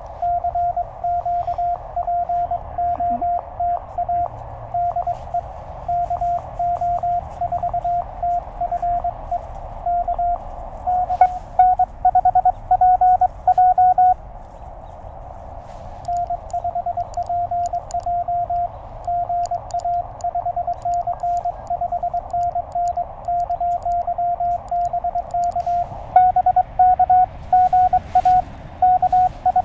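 Morse code heard through a Penntek TR-35 QRP transceiver: a steady-pitched tone keyed on and off in dots and dashes over a hiss of band noise. A second, slightly higher and louder signal takes over about 11 seconds in and again near the end, as two stations exchange calls. A short stretch of hiss alone comes about halfway through.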